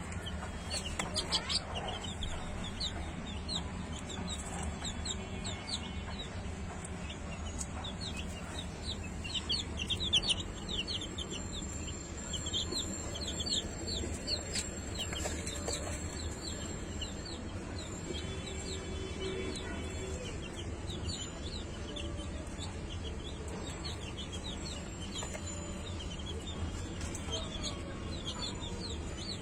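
Chickens clucking, with many quick high chirps through roughly the first twenty seconds, over a steady low hum.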